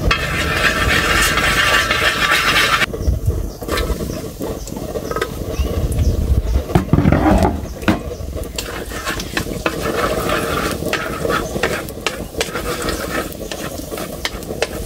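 Chopped garlic sizzling in hot oil in a steel wok, with wooden chopsticks tapping and scraping against the metal as it is stirred. The sizzling is loud for the first three seconds, stops abruptly, then goes on more quietly under the chopstick taps.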